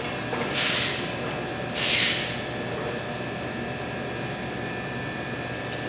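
Two short hissing scrapes, about a third of a second in and again about two seconds in: a scraper pushed across a thin sheet of set chocolate on a marble slab to make chocolate fans. A steady kitchen hum runs underneath.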